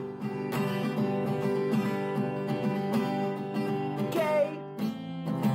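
Acoustic guitar strummed in chords with a steady rhythm.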